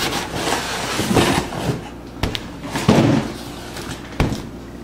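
Cardboard box being handled on a wooden table: short scraping, rustling strokes and a few sharp knocks, the loudest about three seconds in.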